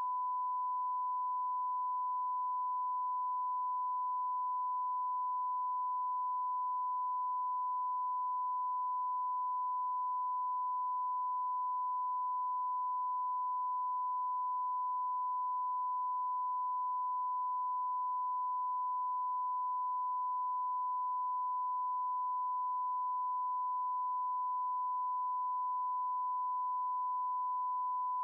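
A steady 1 kHz pure tone at constant level, with no change in pitch or loudness: a redaction tone blanking out classified narration in the declassified soundtrack.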